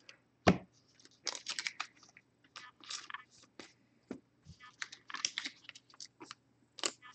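Trading cards being handled by hand: light, irregular clicks, taps and rustles as cards are slid, shuffled and set down on a stack, with a sharper tap about half a second in.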